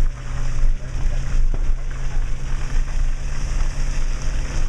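Subaru Outback driving over a rough dirt mountain road, heard from inside the cabin: a steady low engine and road rumble under a crackle of tyres on gravel, with a knock about one and a half seconds in.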